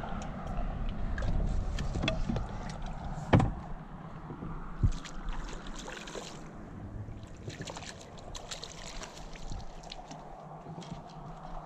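Knocks and small clicks of gear being handled in a small fishing boat, over a low rumble. The sharpest knock comes a little over three seconds in, and another follows a second and a half later.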